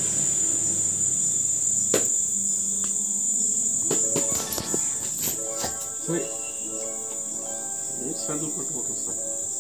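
A pug gnawing on a husked coconut, with scattered sharp clicks and crunches as its teeth work the fibrous husk. A steady high-pitched buzz runs underneath.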